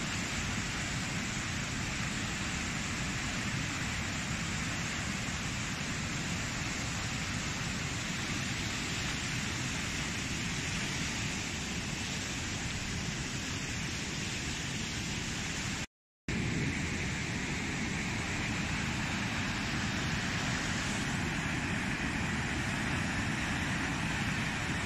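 Swollen, muddy floodwater rushing and churning through a river channel in a steady, loud wash of noise, broken by a short dead gap about 16 seconds in where the footage cuts.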